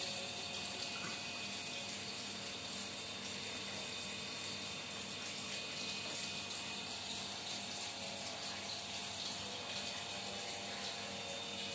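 Steady, even hiss with a faint low hum underneath, unchanging, with no knocks or voices.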